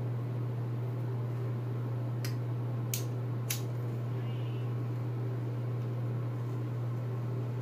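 A lighter struck three times in quick succession, about two to three and a half seconds in, as it is used to light a hand pipe. A steady low hum runs underneath.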